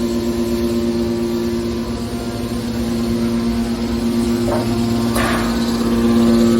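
Hydraulic metal scrap baler running with a steady hum from its pump. Two brief noises break in about four and a half and five seconds in.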